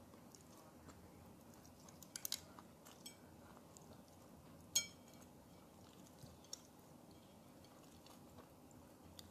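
Faint mouth sounds of a person chewing goat satay and rice, with a few small clicks and one sharper click about halfway through.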